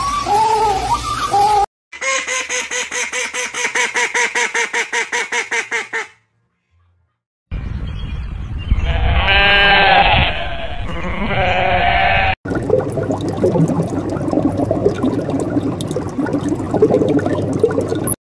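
A run of animal calls, one after another: short arched penguin squawks that cut off under two seconds in, then a fast, evenly pulsing call for about four seconds. After a short gap, a goat bleats in wavering cries, followed by several seconds of rough, crackling noise.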